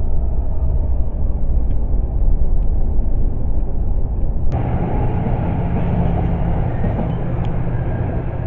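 Low, steady vehicle rumble, with its character changing abruptly about four and a half seconds in.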